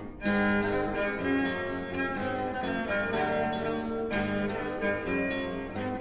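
Instrumental early-music consort piece with bowed strings, viols or violins, over plucked strings, playing a steady succession of held notes.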